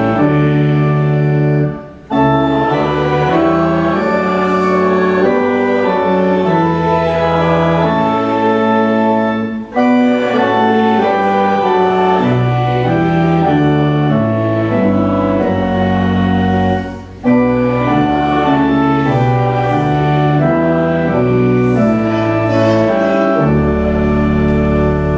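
Church organ playing slow sustained chords in phrases. It stops briefly between phrases about 2, 10 and 17 seconds in, and holds a long low chord near the end.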